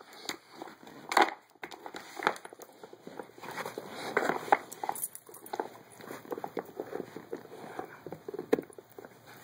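A dog nosing and pawing at a wooden Dog Fighter treat puzzle: irregular clicks and knocks of the wooden pegs and sliders, with rustling of the paper towel stuffed into it.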